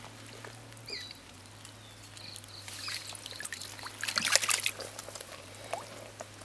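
Hands sloshing and splashing in shallow muddy water while groping for catfish, with a louder burst of splashing about four seconds in.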